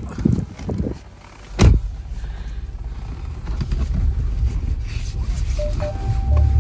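Car: a door thuds shut about a second and a half in, then a steady low rumble of the car running. A few short electronic beeps and a brief held tone sound near the end.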